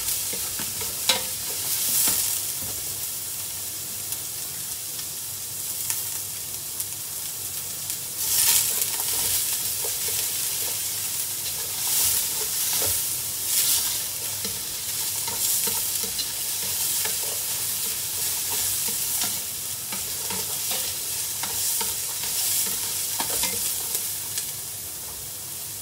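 Chopped garlic, onion and ginger sizzling in hot oil in a metal pot, stirred with a metal spoon that scrapes along the pot bottom again and again, with a sharp clink of spoon on pot about a second in.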